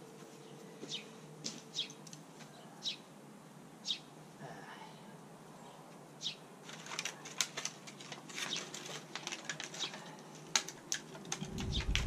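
Light handling noise while planting: scattered short clicks, then a dense run of crinkling clicks from about seven seconds in, with a low rumble coming in near the end.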